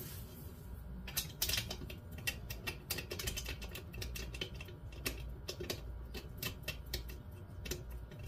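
Light, irregular metal clicks and taps as an intake manifold and carburetor are fitted by hand onto a Briggs & Stratton 5 hp flathead engine block, with a brief cluster of clicks about a second in.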